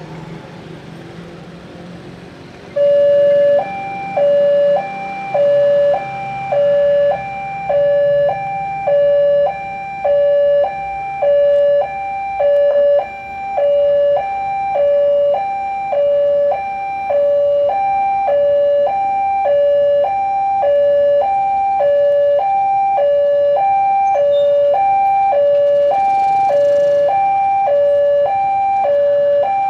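Railway level-crossing warning alarm sounding an electronic two-tone signal, swapping between a lower and a higher pitch about once a second, warning of an approaching train. It starts about three seconds in, over a low rumble of traffic.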